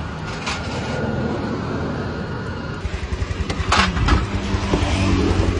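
Honda Vision scooter's single-cylinder engine running after a valve replacement: a rapid low putter sets in about halfway through, with a brief louder burst just after it starts.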